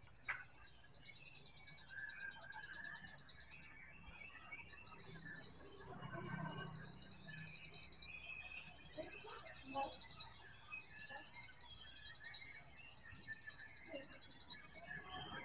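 Faint outdoor insect and bird sounds: a run of high, rapidly pulsed trills, each about a second long with short gaps, under scattered thin chirps, and one sharp click just after the start.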